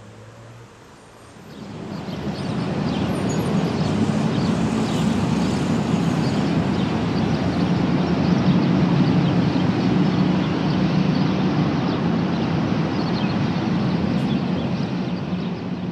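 Road traffic at a street-side bus stop: a vehicle engine running close by, rising about a second and a half in and then holding steady and loud.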